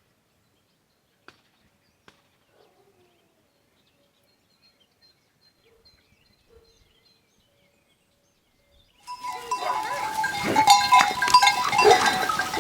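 Near silence for about nine seconds, then livestock suddenly start up: bells clanking and ringing along with bleating calls.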